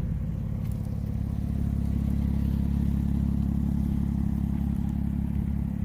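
2001 Porsche Boxster's 2.7-litre flat-six, fitted with a custom exhaust, idling steadily.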